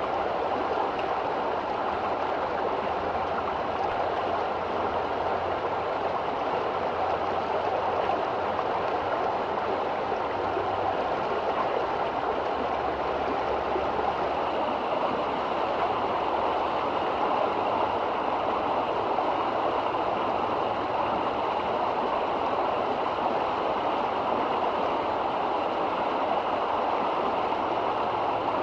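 River water flowing, a steady, even rush with no breaks or changes.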